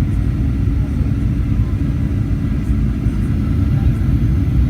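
Steady low rumble inside the cabin of a Boeing 737-800, from its engines and the aircraft's motion, holding level with no sudden change.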